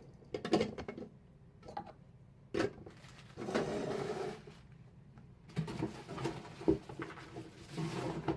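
Plastic blender containers and parts being handled on a table: scattered clicks and knocks, with a sharper knock about two and a half seconds in and a short rustling stretch a second later.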